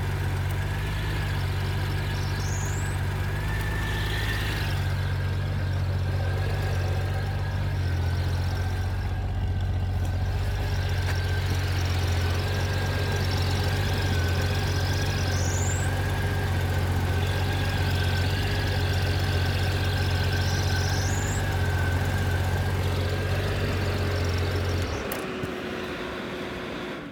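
Honda GL1500 Gold Wing's flat-six engine idling with a steady thin whine and a light whooshing hiss from the clutch, a few short rising chirps over it. The noise is one the owner later traced to a clutch slave cylinder full of debris with low fluid. The engine is shut off near the end.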